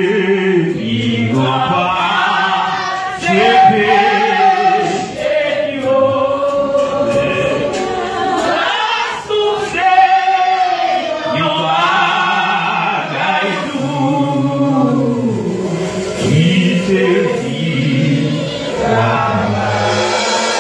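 Choir singing a gospel hymn, several voices together with sustained, gliding phrases.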